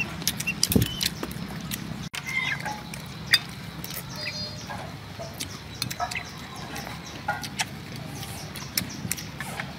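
Eating sounds: chewing and mouth smacking, with many small sharp clicks from chopsticks and handled lobster shell.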